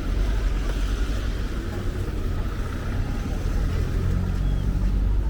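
Steady low rumble of a vehicle, with no clear start or stop.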